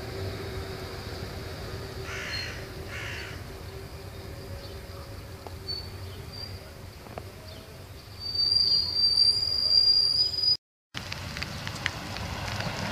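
Trains moving through a station yard: a steady low hum, then from about eight seconds in a loud, high-pitched squeal of steel wheels on rail as a diesel freight locomotive passes, cut off suddenly near the end.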